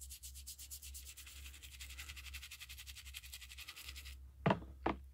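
Toothbrush scrubbing a wet, soapy plastic screwdriver handle in quick back-and-forth strokes to wash off powdery rust, stopping about four seconds in. Two short sharp knocks follow near the end.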